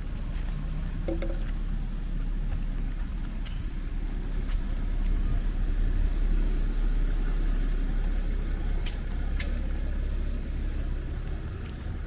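A motor vehicle driving past on the street, its low engine and road rumble growing louder toward the middle and then fading.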